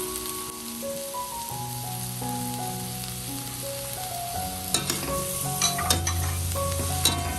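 Food sizzling as it fries in a hot pan, with a few sharp scrapes or clinks of a utensil stirring it about five and seven seconds in. A light melody of background music plays underneath.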